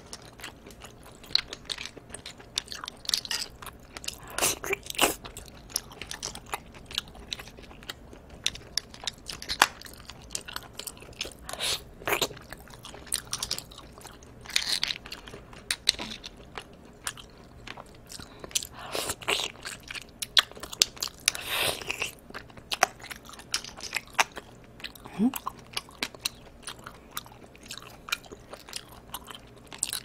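Close-miked eating of steamed clams and mussels: the meat is sucked off the shells in several longer wet sucking sounds every few seconds, between chewing and many small sharp clicks.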